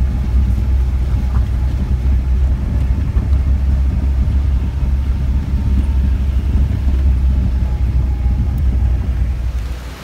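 Low, steady rumble of a vehicle driving slowly over a cobblestone road, cutting off abruptly near the end.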